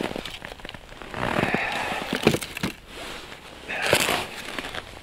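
Rustling and crunching as an angler kneels and works at an ice hole, clothing and packed snow scraping. It comes in two crackly bursts with small clicks, about a second in and again near four seconds.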